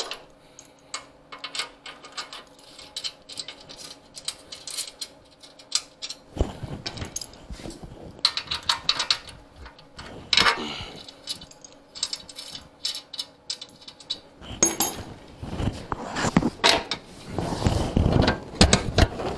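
Metal clinks and clicks of a wrench loosening and removing the nuts on the rear fender brackets of a motorcycle. The clicks are scattered at first and turn into denser, louder clattering of metal parts over the last few seconds.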